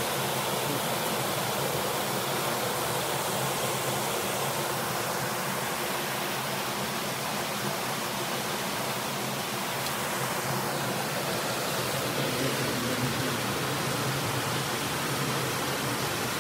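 Flowing river water rushing steadily, an even unbroken wash of noise.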